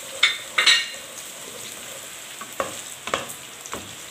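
Sliced beef and fish meatballs with chopped garlic sizzling in hot oil in a wok, turned with a wooden spatula. The spatula strokes come as sharp scrapes over the steady hiss, loudest twice in the first second and a few more after.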